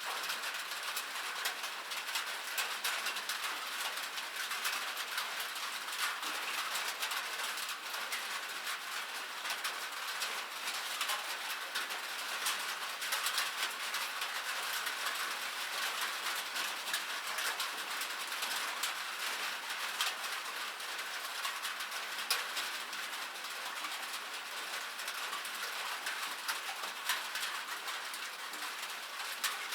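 Steady rain on metal: a dense run of small, sharp drop taps over an even hiss, with almost no low end.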